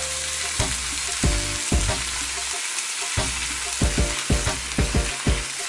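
Haddock fillets, brushed with olive oil, frying skin side down in a smoking-hot pan: a steady sizzle with frequent short crackles and pops.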